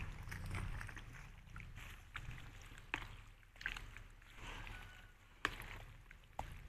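Raw goat offal being stirred and turned in its marinade in a plastic bowl: soft wet squelching of the meat, with a few sharp clicks of the utensil against the bowl.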